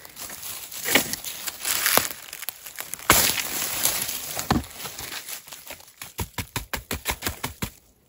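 Crinkling and rustling handling noise in irregular bursts, then a quick run of small clicks, about six a second, near the end.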